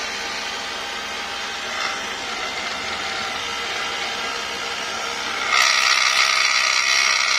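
Mercedes W221 air-suspension compressor running with a loud, harsh mechanical buzz, growing louder about five and a half seconds in. The noise is the sign of a worn-out compressor; when opened, it shows a scored cylinder.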